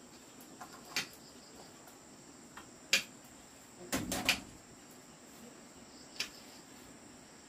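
Insects droning steadily, faint and high-pitched, broken by a few sharp knocks: one about a second in, one at three seconds, a quick double knock around four seconds and one more after six.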